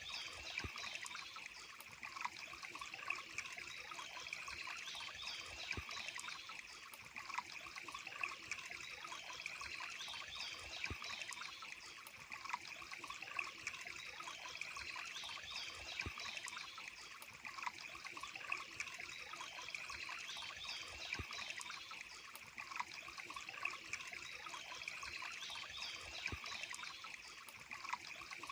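Water trickling and splashing steadily, like a small stream over stones, with many small drips and plops through it.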